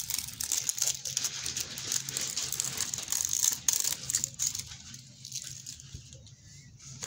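Plastic packaging of a play-dough set crinkling and tearing as it is opened by hand, busiest in the first four seconds and then quieter.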